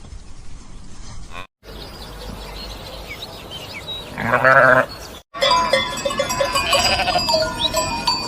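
Farm animals calling in a run of short clips: one loud bleat-like call about four seconds in, then many overlapping calls with steady ringing tones.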